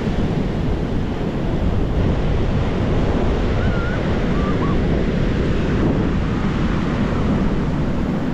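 Sea surf breaking and washing up the beach in a steady roar, with wind buffeting the microphone.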